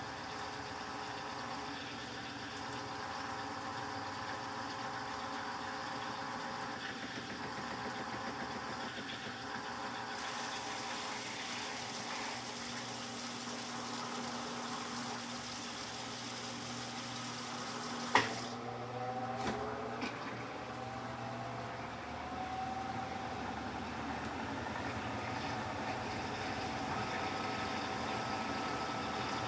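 Electrolux LTC15 top-loading washing machine running its spin cycle with a steady motor hum. A sharp click about 18 seconds in is followed by a whine that rises in pitch.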